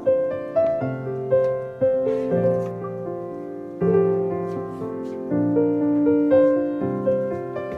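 Gentle background piano music, notes struck at an even, unhurried pace.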